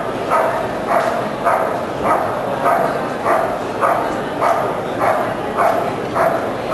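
German Shepherd Dog barking steadily and rhythmically, about two barks a second. This is the sustained bark-and-hold at the helper in the protection phase of a Schutzhund trial.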